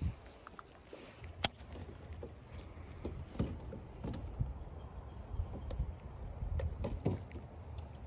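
A baitcasting reel being cranked to retrieve a lure: scattered small clicks and soft knocks from the reel and hands, one sharper click about a second and a half in, over a low steady rumble.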